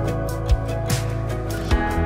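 Background music with sustained low notes and a drum beat.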